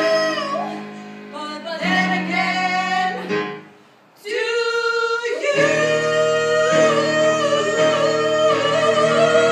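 A song: singing with instrumental accompaniment, broken by a brief pause about four seconds in, then long held notes.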